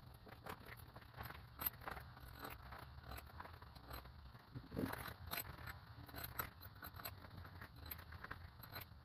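Faint, irregular metallic clicks and scrapes as head bolts and washers are handled and set into the aluminium cylinder head of a Toyota 1ZZ-FE engine. A low steady hum sits underneath.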